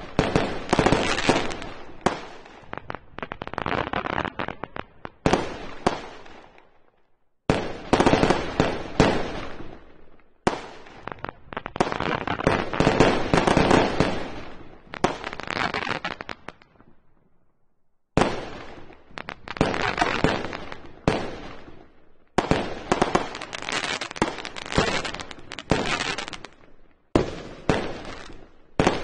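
Fireworks shells bursting overhead: repeated sharp bangs in clusters, each followed by a long, dense crackling tail, with brief lulls about seven and eighteen seconds in.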